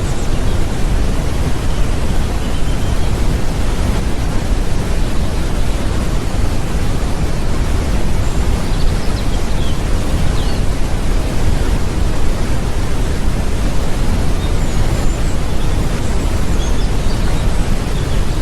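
Waterfall sound effect: a steady, loud rush of falling water, heaviest in the low end, with a few faint high chirps here and there.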